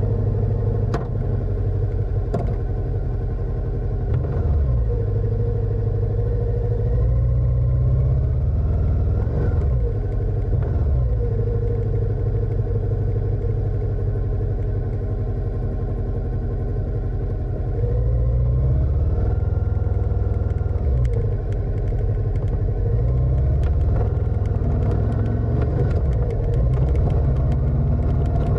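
Motorcycle engine running under way, its pitch rising as it accelerates a couple of times and dropping between.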